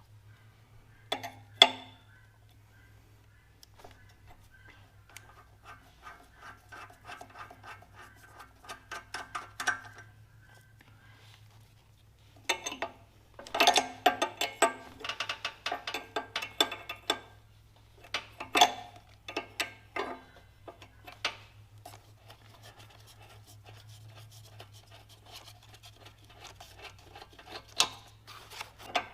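Steel wrenches clinking, scraping and clanking against the hydraulic hose fittings at a compact tractor backhoe's control valve as the lines are loosened, in irregular clusters with several louder metallic clanks, over a low steady hum.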